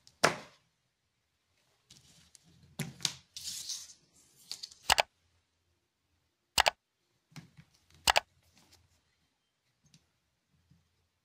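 A few separate sharp clicks and snips with a short spell of rustling, from small hand tools and hook-up wire being handled while wiring a small circuit board.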